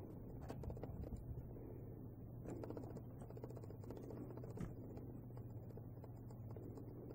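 Faint rustling and scattered light clicks of 5-week-old Abyssinian kittens scampering and pouncing on a fabric bedspread and pillows, over a steady low hum.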